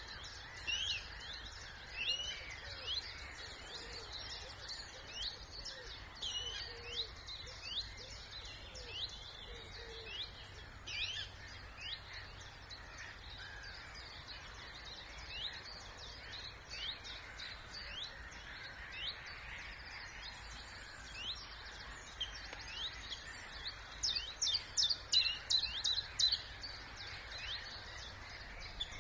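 Several songbirds singing at once in a spring chorus of short high chirps and trills, with a quick run of loud notes about 24 seconds in. Faint, steady distant noise lies underneath.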